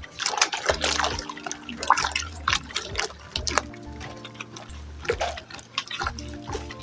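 Thickening hair-conditioner mixture being stirred in a bowl, with irregular wet sloshing and splashing, over background music with steady bass notes.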